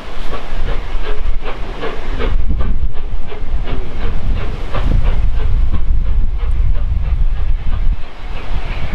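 Steam locomotive working, its exhaust beating in a quick, even run of chuffs with hissing steam, over a low rumble.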